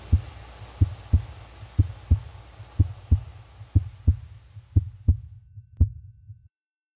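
Heartbeat sound effect: paired low thumps about once a second over a low hum, which cut off suddenly about six and a half seconds in.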